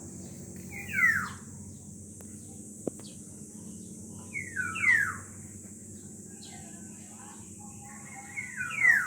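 Black-naped oriole calling: three loud calls about four seconds apart, each a quick downward sweep. A steady high hiss runs underneath.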